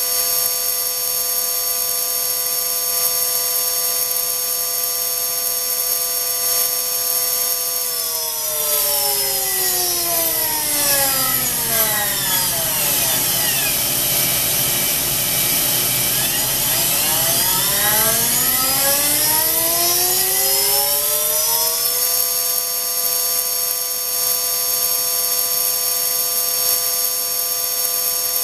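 High-speed electric motor spindle on a test bench whining steadily at 30,000 rpm with a high hiss over it. About eight seconds in it slows to under 10,000 rpm, the tones of the whine gliding down in pitch. It then runs back up to 30,000 rpm, the whine gliding up again to the same steady pitch.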